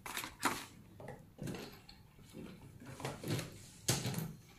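Small paper packaging boxes being handled, with a few short knocks and rustles; the loudest comes near the end.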